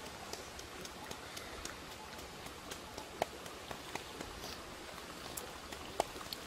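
Pestle pounding in a small mortar: irregular light knocks, two of them louder, about three seconds in and near the end, over the steady rush of a shallow stream.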